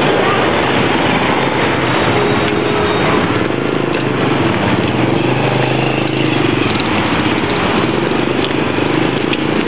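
Road traffic at a level crossing: a steady mix of vehicle engines running, with no single event standing out.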